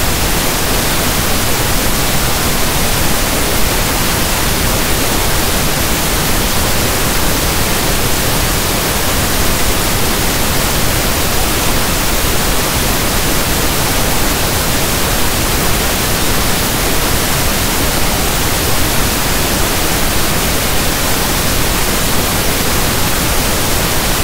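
Steady pink noise: an even, unchanging hiss like the static of a radio not tuned to a station.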